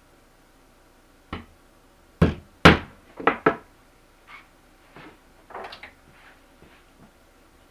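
Claw hammer striking 2-inch finishing nails through a beaver hide into a plywood boarding board: about five sharp blows in the first three and a half seconds, then a few fainter knocks and a brief rustle.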